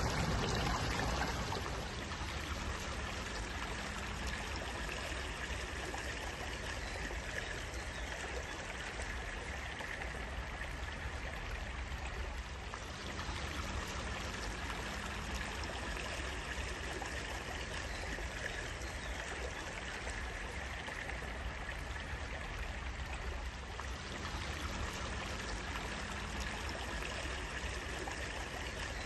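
Running water of a small stream: a steady, even flow.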